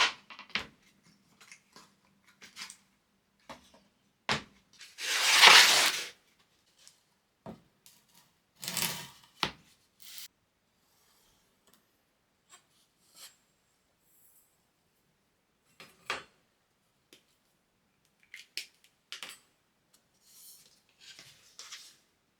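Hands working with wooden jig parts and tools on a bench: scattered light knocks and clicks, with a loud noisy sound lasting just over a second about five seconds in and a shorter one near nine seconds.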